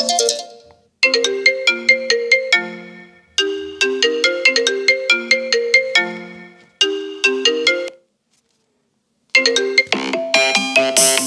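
Apple iPhone ringtones playing. A melody of short, quickly fading notes plays in three repeated phrases and stops about eight seconds in. After a pause of a second or so, a busier, brighter ringtone starts.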